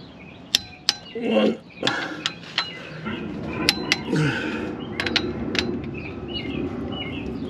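Click-type torque wrench breaking over as flywheel bolts are tightened to 74 foot-pounds: a series of sharp metallic clicks, with clinks of the socket going onto each bolt in turn.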